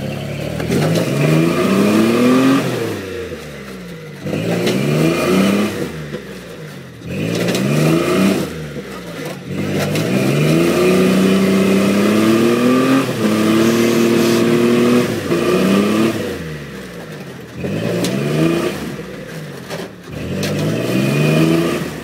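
Lifted Toyota pickup's engine revving in repeated bursts as it crawls over rock ledges, about eight surges, each rising in pitch and falling back, two held high for a couple of seconds around the middle.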